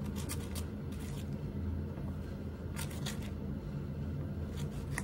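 A few brief rustles and scrapes of objects being handled over a steady low hum.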